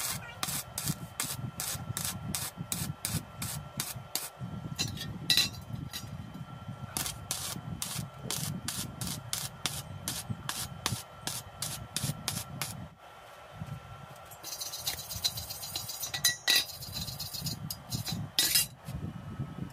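Stick-welding arc crackling and popping as a joint in square steel tubing is welded, with a short break about two-thirds through. Near the end, a few sharp knocks of a chipping hammer knocking slag off the fresh weld.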